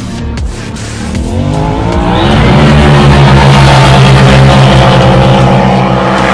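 Two side-by-side UTVs launching in a drag race: their engines rev up over the first two seconds or so, then run loud and steady at high revs as they race away.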